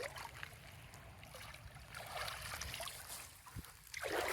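Faint trickling and splashing of river water, with a few small clicks.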